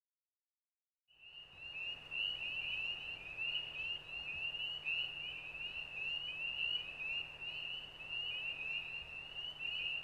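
A chorus of small frogs: many high, short rising peeps overlapping in a continuous, dense trill over a faint low hum. It fades in about a second in.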